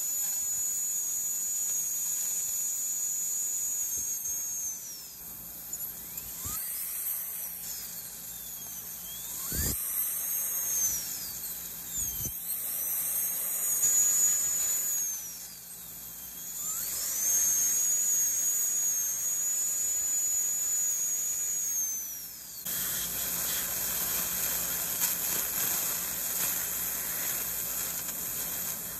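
High-speed dental air-turbine handpiece with a round bur whining at a high pitch as it cuts out a filling plug from a molar. Its pitch falls away each time it is eased off and climbs back as it speeds up again, several times. It winds down and stops about three-quarters of the way through, leaving a steady hiss.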